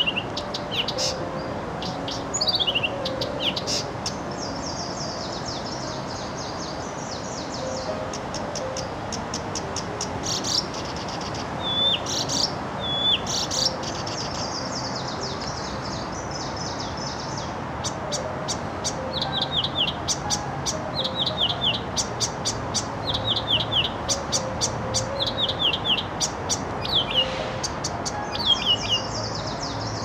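A camyshovka (Acrocephalus warbler) singing a long, varied song. Its phrases are runs of rapid high chattering notes and repeated sharp down-slurred whistles, broken by short pauses, and they come thicker toward the end.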